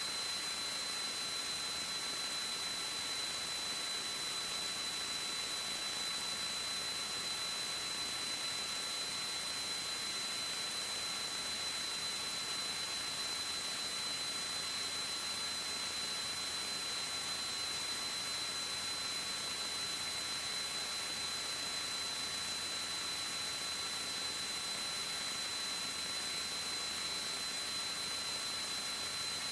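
Steady faint hiss with a constant high-pitched whine running through it, unchanging throughout, with no engine sound or voices audible.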